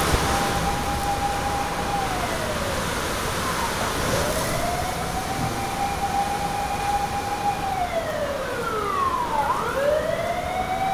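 Emergency-vehicle siren wailing in repeated cycles: each wail rises, holds about two seconds, then falls, roughly every four seconds. A second, higher wail overlaps near the end. Underneath is a steady rush of typhoon wind and rain.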